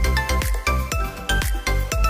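Background music with a steady, fast beat of deep bass hits and melodic notes over it.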